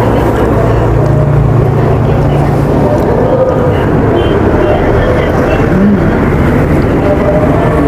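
Steady, loud low rumble of background noise, with faint indistinct voices in the background.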